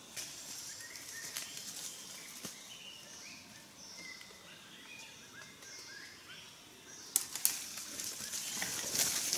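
Short, high, rising chirping calls repeat through forest ambience. From about seven seconds in, loud crackling footsteps through dry leaf litter draw closer.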